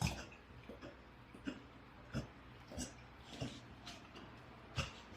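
A Tusong dog breathing fast after eating too quickly, in short faint breaths about every half second to second.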